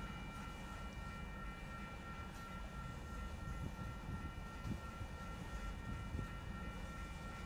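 A train rolling by with a low rumble, over a steady high-pitched whine made of several tones.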